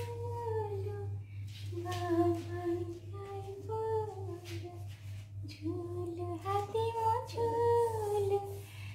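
A voice singing a slow, wordless tune in long held notes that glide from one pitch to the next, in three phrases with short breaks between them. A steady low hum runs underneath.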